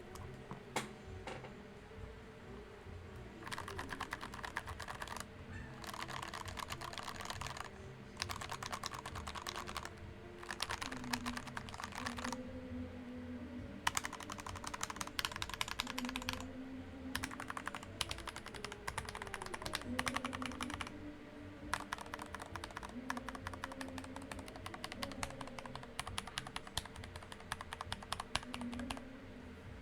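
Typing on a handbuilt Dactyl Manuform split keyboard with a 3D-printed case and lubed Gateron Black Milky Top linear switches. The keystrokes come in rapid runs of a few seconds with short pauses between them, over faint background noise.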